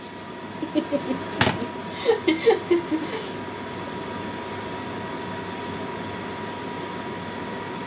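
Steady fan-like machine hum with a faint high tone through it, a single sharp click about a second and a half in, and a few brief, faint voice murmurs in the first three seconds.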